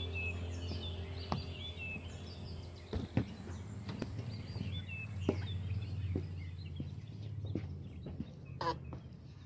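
Outdoor ambience of small birds chirping in short high calls over a steady low hum, with scattered knocks and clicks. The hum fades out near the end.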